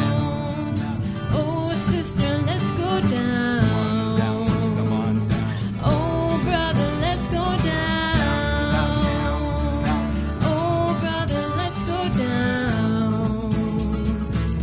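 Acoustic bluegrass band playing, with guitar and other string instruments over a steady bass and melody lines that slide in pitch.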